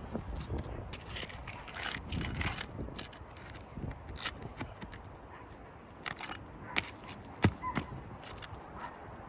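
Scraping and scattered sharp clicks of roofing work on asphalt shingles, as a shingle is pried up and its nails are pulled, with the loudest single metallic click about seven seconds in.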